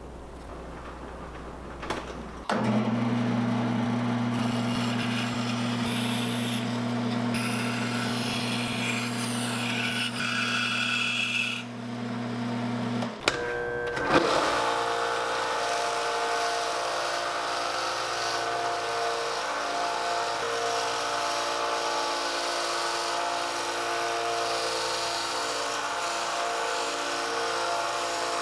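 Power saw starts about two seconds in and runs steadily while cutting clear Lexan polycarbonate sheet to paper templates, with rasping cutting noise over the motor. Around halfway through, the sound breaks briefly and comes back with a different, higher-pitched running tone.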